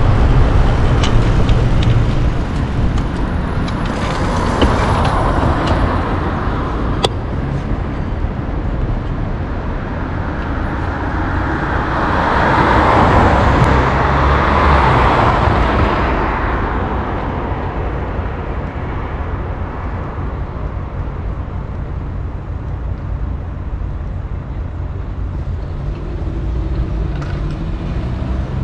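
Busy city street traffic under a steady low rumble, with a vehicle passing close by that swells and fades about twelve to sixteen seconds in, and a smaller pass earlier. A few sharp clicks sound in the first several seconds.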